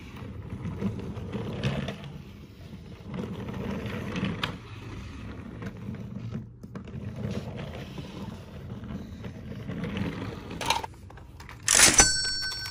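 Plastic toy train wheels rolling and scraping along a wooden tabletop, with the light knocks of toys being pushed and set down. Near the end a sharp clatter and a battery toy's electronic tones start.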